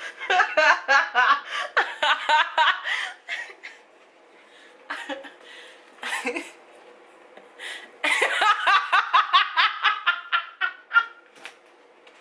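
A woman laughing hard in two long fits of rapid bursts, the first at the start and the second starting about eight seconds in, with a few short laughs and breaths between.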